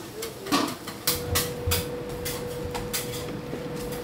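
Kitchen clatter: several sharp knocks and clinks of metal cookware and utensils, with a steady hum setting in about a second in.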